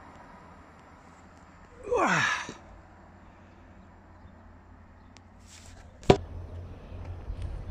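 A person's breathy, voiced sigh about two seconds in, falling steeply in pitch. About six seconds in comes a single sharp knock, followed by low rumbling handling noise as the camera is moved.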